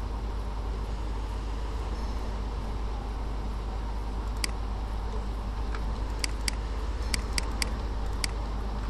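Computer mouse clicking: about eight short, sharp clicks in the second half, over a steady low electrical hum and hiss.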